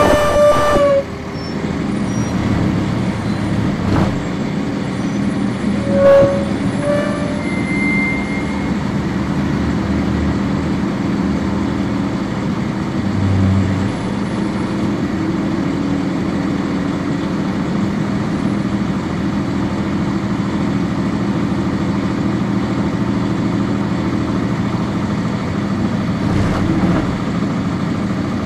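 1999 NovaBus RTS transit bus heard from on board, its Cummins ISC diesel running with a steady low hum. A loud pitched tone sounds for about a second at the start, and a shorter one about six seconds in.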